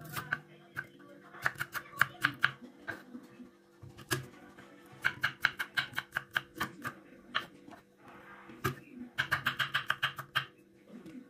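Knife slicing red shallots and then garlic cloves on a wooden cutting board: quick runs of sharp knocks of the blade striking the board, in three bursts with short pauses between.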